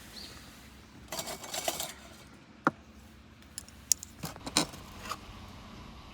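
Small clinks and knocks of camp cookware and utensils being handled, with a short rattling rustle about a second in.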